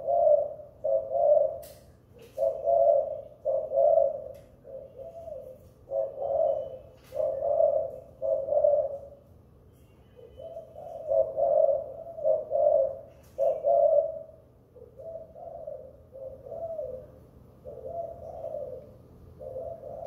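Caged spotted doves cooing: low coo notes in repeated phrases with short pauses between them.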